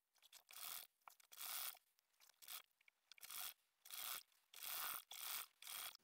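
Hands rubbing and smoothing woven fabric as it is folded and pressed flat on the sewing machine bed: a series of short, soft rubbing strokes with small pauses between them.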